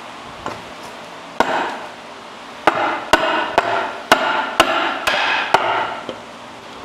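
Hammer blows on a wooden board held against a skid steer's auxiliary hydraulic coupler block, driving the couplers onto their fittings. After a light tap come eight sharp strikes, about two a second in the latter part, each followed by a brief ringing.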